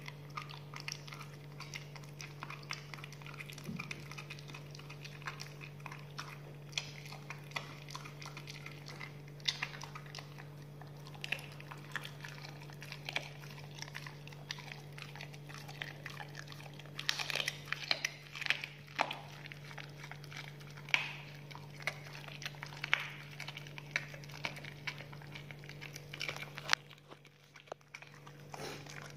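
A pit bull chewing and crunching on a raw chicken leg: a steady run of wet chews and sharp crackles, coming thickest and loudest a little past the middle. A steady low hum runs underneath and drops out briefly near the end.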